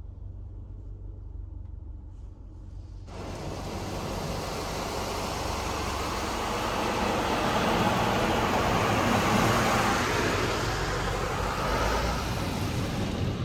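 PDQ Tandem Surfline touchless car wash at work on the car: a steady rushing hiss starts abruptly about three seconds in, swells louder toward the middle, then cuts off suddenly at the end, over a constant low hum.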